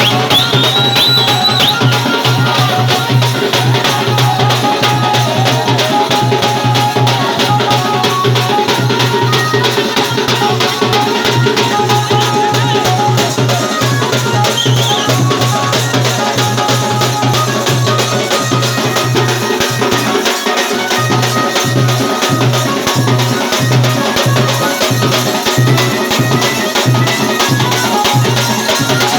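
Saura folk dance music: fast, dense drumming with rattling percussion over a held melody. The deep steady tone underneath breaks off about twenty seconds in and returns as short beats.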